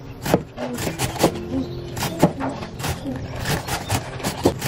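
Cleaver slicing through cabbage and knocking on an end-grain wooden cutting board, about eight irregular chops.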